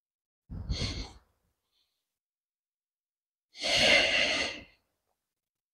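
A man's breaths: a short exhale about half a second in, then a longer, louder sigh near four seconds in.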